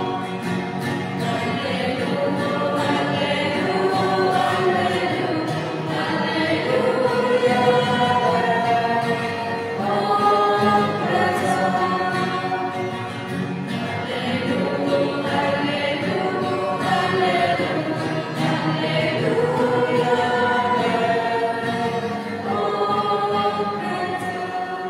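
A choir singing a hymn in long held notes.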